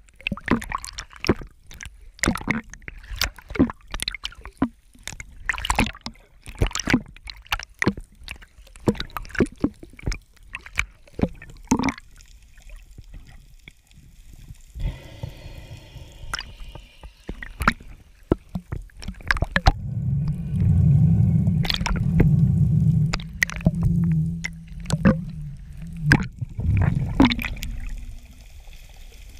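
Underwater sound picked up by a camera below the surface: water gurgling, with many irregular sharp clicks and knocks. A low, loud rumble swells about two-thirds of the way through and fades after a few seconds.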